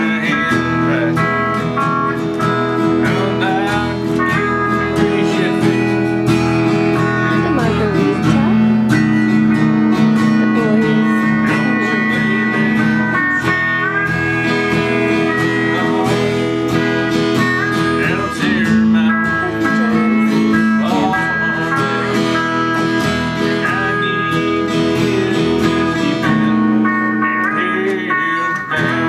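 Country-style guitar music with a steel or slide guitar carrying long held notes over plucked strings.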